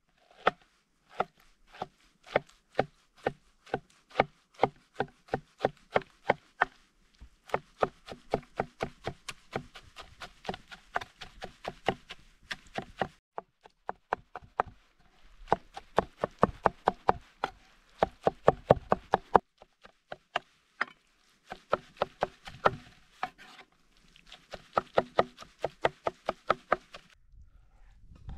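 Knife chopping on a wooden cutting board: quick runs of strokes, several a second, broken by short pauses.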